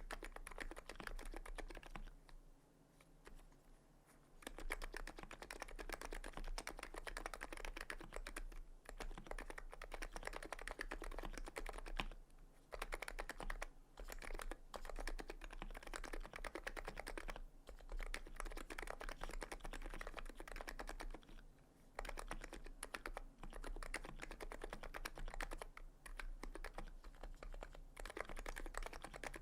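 Fast, continuous typing on a TX66C R2 electro-capacitive keyboard with 45 g springs and KBDfans EC HiPro Renso keycaps, giving a rapid run of soft keystroke clacks. The typing pauses briefly a few times.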